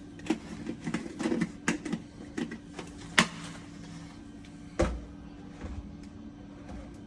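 Handling of a coffee machine's cleaning container and cleaning tablet: a quick run of sharp clicks and light plastic knocks over the first three seconds or so, then a single duller thump about five seconds in, over a steady low hum.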